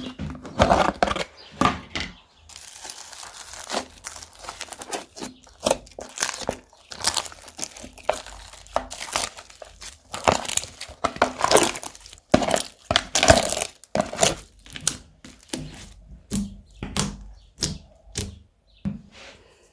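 Slime being squished, stretched and folded by hand, making an irregular run of short sticky clicks and pops.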